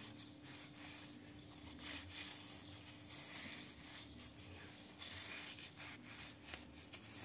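Faint rubbing of a rag along a motorcycle roller chain, in uneven strokes, wiping dirt off the links.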